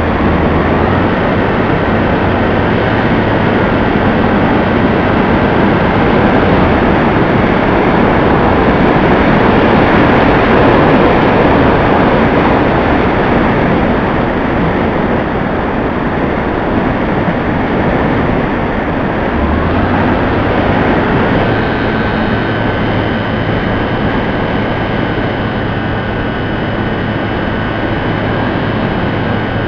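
An FPV model aircraft in flight, heard from on board: a steady rush of air over a propeller-driven motor's hum. The hum steps up in pitch with the throttle about a second in and again about twenty seconds in.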